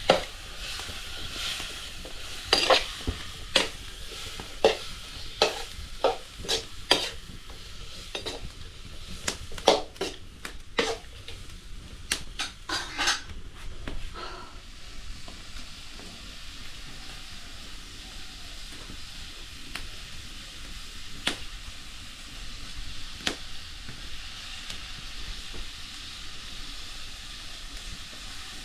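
Food sizzling in a hot pan while a spoon stirs and scrapes against it, with frequent sharp knocks and scrapes over the first half. After that it is mostly steady sizzling with an occasional knock.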